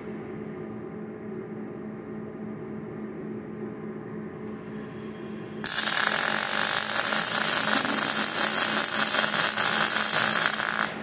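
Robot-held arc welding torch striking an arc about halfway in and welding with a loud, steady crackling sizzle for about five seconds, then cutting off suddenly near the end. Before the arc a steady electrical hum is heard.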